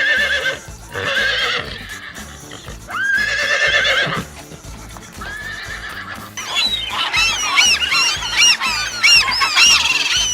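Horse whinnying several times, each call quavering, over background music. From about six seconds in, a dense chorus of many short high chirping calls takes over.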